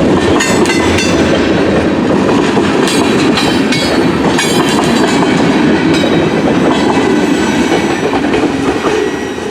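CN freight train's cars rolling past at close range: a loud steady rumble of steel wheels on rail with clickety-clack over the joints and brief metallic rattles, easing off slightly near the end.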